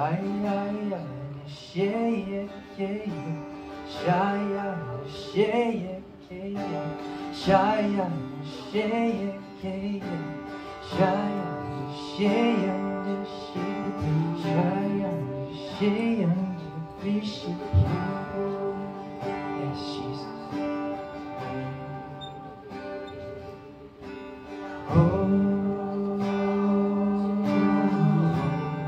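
Slow live worship music: acoustic guitar and held chords under a low voice singing a wavering, wordless line. It swells louder about 25 seconds in.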